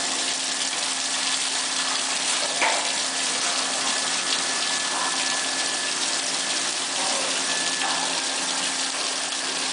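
Steady rushing spray of quench water on an induction hardening machine, with a steady low hum and a faint high whine underneath.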